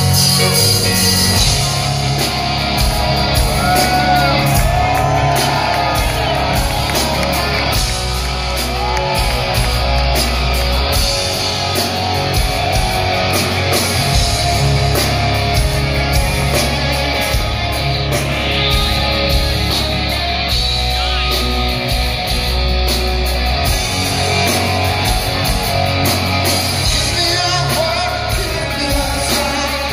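Live rock band playing a song with electric guitar, drums, keyboards and a sung vocal, heard loud from within the audience in a large hall.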